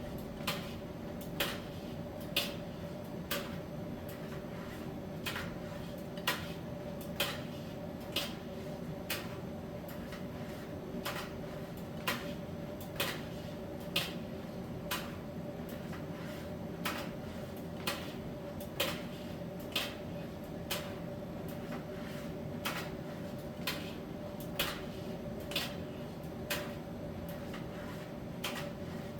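Miele T1 heat-pump tumble dryer running its drying phase: a steady hum with a faint steady tone. Over it, short light clicks come about once a second as the load tumbles in the drum.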